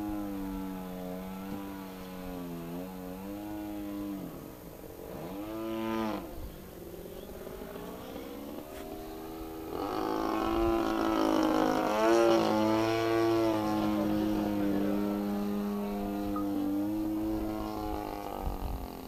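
Engine and propeller of an Edge 540 aerobatic model plane droning in flight, its pitch rising and falling as it manoeuvres. The pitch swings sharply as it passes about five seconds in, and the sound is loudest around ten to thirteen seconds in.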